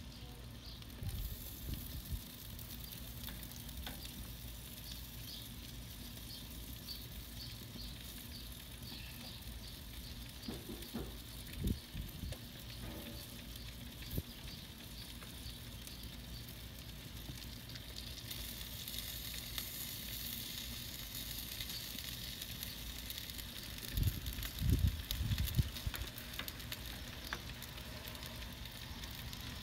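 Meat sizzling on a hot grill, a steady hiss, with dull knocks from the tongs handling it: one about halfway through and a cluster near the end.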